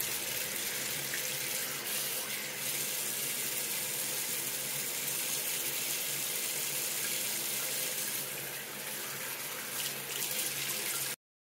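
Tap water running steadily into a sink and splashing over a wet Yorkshire terrier being rinsed. The sound cuts off suddenly near the end.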